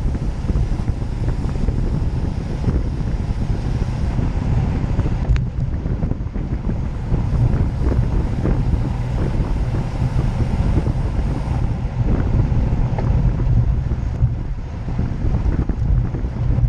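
Wind buffeting a bike-mounted action camera's microphone while riding at about 30 mph in a cycling pack: a loud, steady, low rumble.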